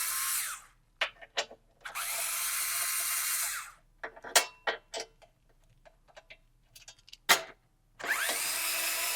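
Cordless power tool spinning out the pre-loosened subframe brace bolts in short runs of a couple of seconds each, its pitch dropping slightly as each bolt frees. Sharp metallic clicks and clinks of the socket, bolts and brace come between the runs.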